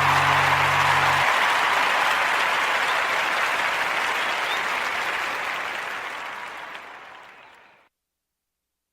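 Applause fading out steadily, gone about eight seconds in, with the last low notes of an acoustic guitar ringing briefly at the start.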